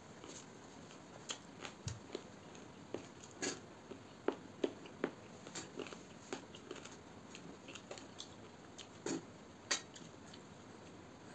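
Close eating sounds: a man chewing and smacking on a mouthful of rice and chicken curry, and his fingers mixing rice on a steel plate, heard as irregular short wet clicks and smacks.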